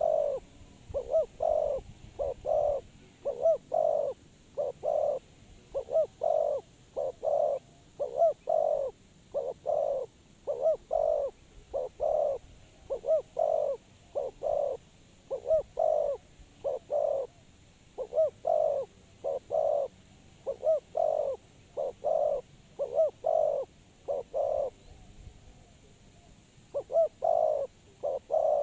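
Spotted dove cooing over and over in a steady run of short low coos, with a pause of a couple of seconds near the end before it starts again.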